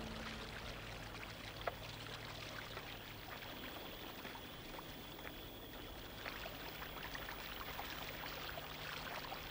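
Faint, steady trickling of water, with scattered small clicks and a thin, high, steady tone.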